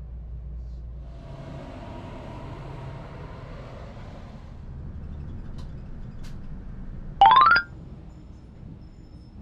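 Running noise heard inside a local train carriage, then the rumble inside a city bus. About seven seconds in there is a short, loud electronic chime of tones stepping quickly upward.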